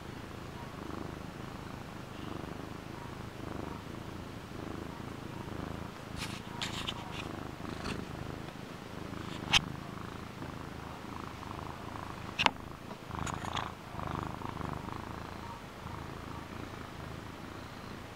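Domestic cat purring steadily, up close. A few sharp clicks and taps break in past the middle, the loudest two about three seconds apart.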